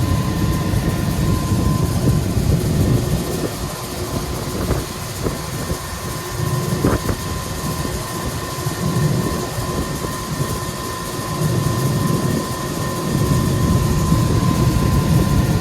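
Rooftop HVAC machinery running: a steady drone with a high whine over a low rumble that swells and fades. A single knock sounds about seven seconds in.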